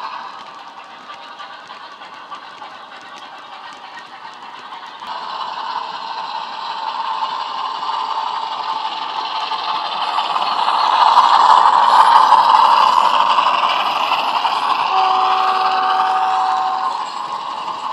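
Sound-fitted Bachmann OO gauge Class 47 model's DCC sound decoder playing a Class 47 diesel engine sound through its bass-enhanced speaker. The engine sound swells as the locomotive comes closer and is loudest a little past the middle, with the model wagons' wheels rattling on the track. A single steady horn note sounds for about two seconds near the end.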